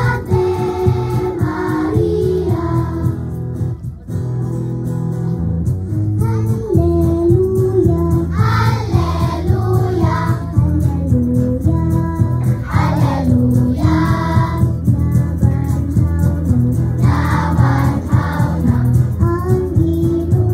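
A children's choir singing a hymn over steady, sustained instrumental accompaniment.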